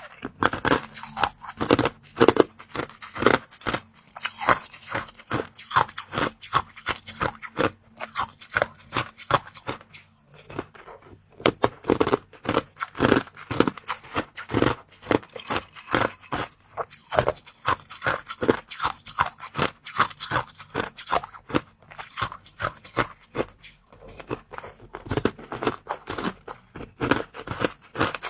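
Close-up eating sounds: a person biting into and crunching the oval treats. Sharp crunches come several to the second in runs, with short pauses between mouthfuls.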